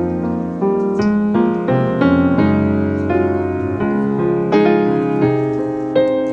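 Background piano music: a soft melody of struck notes over sustained chords.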